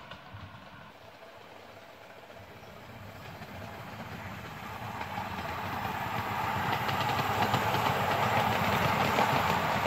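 A 7¼-inch gauge miniature railway train approaching. Its running sound grows steadily louder from about a third of the way in and is loudest near the end.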